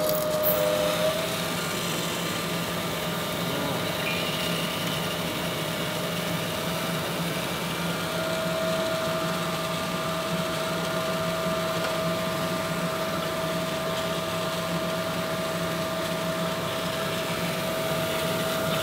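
Crankshaft grinding machine running steadily: motor hum with a steady whine that grows stronger about eight seconds in.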